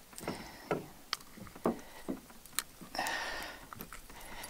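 Scattered light clicks and taps as a lure's hooks are worked free of a largemouth bass's mouth by hand, with a short rustling hiss about three seconds in.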